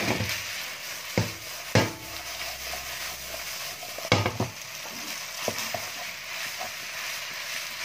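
A wooden spatula stirring a stir-fried mix of tempeh, tofu, vegetables and glass noodles in a nonstick wok over the heat: a steady frying sizzle with scattered knocks and scrapes of the spatula against the pan, the loudest about two seconds and four seconds in.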